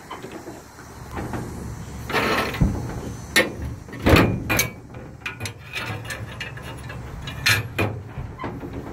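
Irregular knocks, clicks and rattles inside a metal horse trailer, the loudest about four seconds in.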